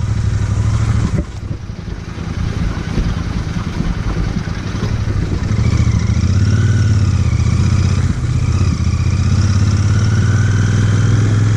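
Royal Enfield Interceptor 650's parallel-twin engine running at low speed over a rough gravel track. It eases off a little over a second in and runs harder again from about halfway.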